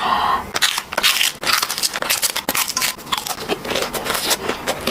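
Crisp food being crunched and chewed close to the microphone: a dense, irregular run of crackling bites.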